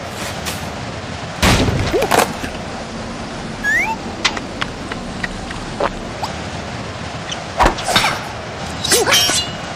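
Cartoon typhoon sound effects: a steady rush of storm wind, with several sharp thuds and knocks of flying debris striking, the loudest about a second and a half in and a cluster near the end.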